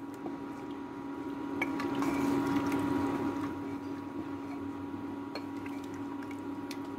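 A ladle stirring lentils and water in a pressure cooker, the liquid sloshing, loudest a couple of seconds in. A steady hum runs underneath.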